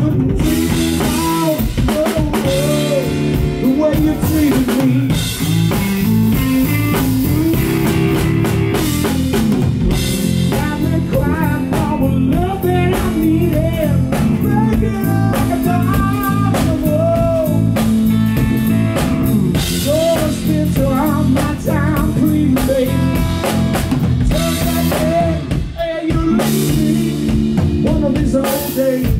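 Live blues band playing: electric guitar lead with bent notes over a drum kit. Brief dip at about 26 s.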